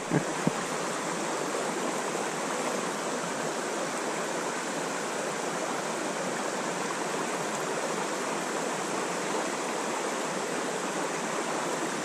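Mountain trout stream running: a steady, even rush of flowing water.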